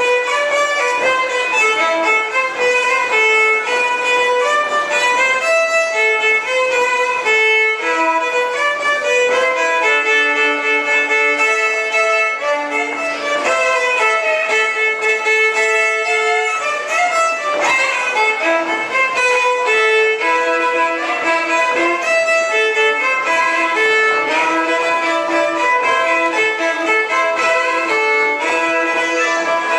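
Fiddle playing a Breton gavotte du bas Léon dance tune, one unbroken run of notes with no pause.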